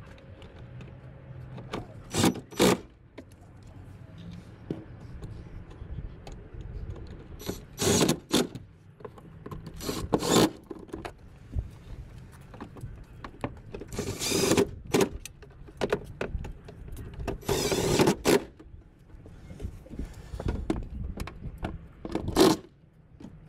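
Irregular clanks, rattles and scrapes of hand tools and metal parts being handled during a fan and fan-clutch replacement, with the loudest bursts near the middle and end.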